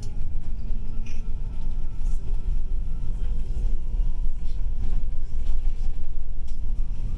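Bus engine and tyre noise heard from inside the cabin while driving: a steady low rumble.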